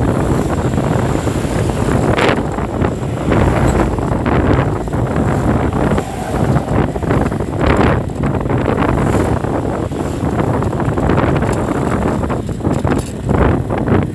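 Steady wind rumble on the microphone over street traffic noise.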